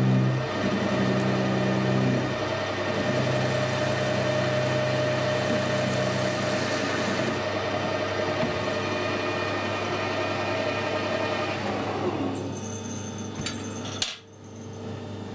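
Metal lathe running with its three-jaw chuck spinning while an insert tool finishes the end of a stainless steel part. About twelve seconds in the lathe is switched off and winds down, then a sharp knock and a few small metal clicks as the part is handled in the stopped chuck.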